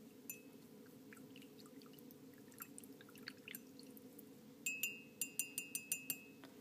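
A spoon stirring coffee in a cup: faint light ticks at first, then, about two-thirds of the way in, a quick run of ringing clinks of the spoon against the cup's side. A low steady hum runs underneath.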